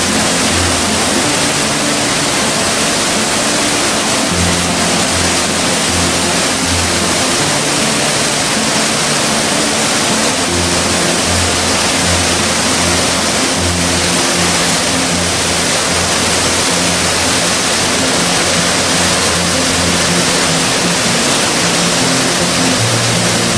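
Mountain waterfall and rocky cascade rushing steadily, with background music of slow held low notes over it.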